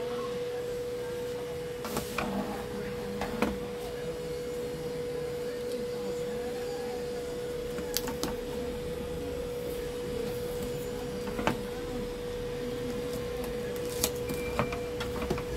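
A steady, even hum at one pitch, with a few sharp clicks and knocks as hands handle an opened LED TV's plastic back cover and metal chassis.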